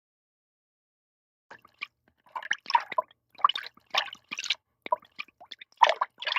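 Silence, then from about a second and a half in, an irregular run of water drips and small splashes.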